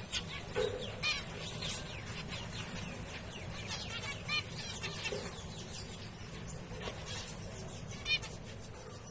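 A flock of zebra finches calling: many short, nasal, beeping calls overlapping several times a second, with a few louder ones standing out, over a steady low background noise.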